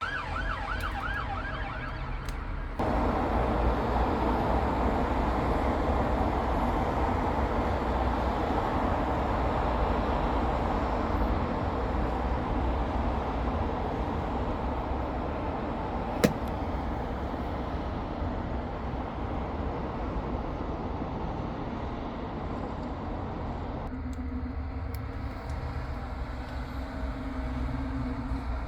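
UK emergency vehicle's siren on a fast yelp, cut off abruptly about three seconds in. Loud traffic noise from passing vehicles follows. Near the end it drops to a quieter engine hum.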